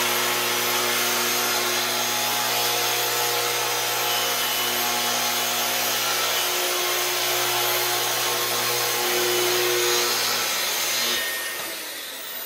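Festool TS75 plunge-cut track saw cutting through a wooden board: a steady motor whine under the blade's sawing noise. About a second before the end, the sound drops off as the cut finishes.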